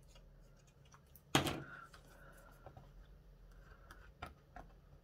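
A plastic card scraper faintly scraping and clicking as it mixes car body filler with hardener on a plastic tray lid, with one sharp knock about a second in.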